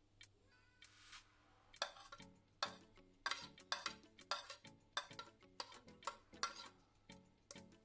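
Kitchen utensil clinking and scraping against a dish while ingredients are stirred, in quick irregular knocks.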